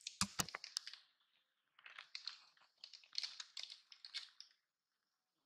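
Quick dry crackling and crunching clicks in two spells, the second longer, stopping about four and a half seconds in.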